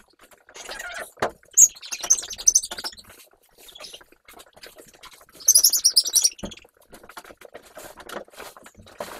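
Puppies squealing and whining, pitched up into quick bird-like chirps by fast playback. The chirps are loudest in two clusters, one about a second and a half in and one past the middle, with short knocks and rustling between.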